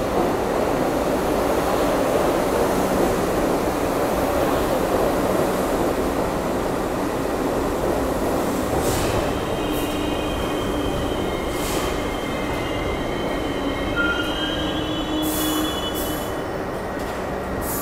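R62A subway train pulling into the station and braking: steady wheel rumble, then from about halfway in a high squeal from the wheels and brakes, with a few short hisses as it slows toward a stop.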